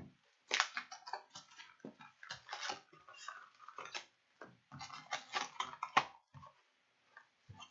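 Irregular crinkling, tearing and clicking of plastic wrap and cardboard as a sealed box of hockey cards is unwrapped and opened.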